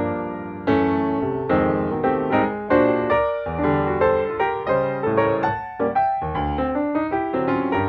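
Background piano music: chords struck every second or so, each decaying before the next.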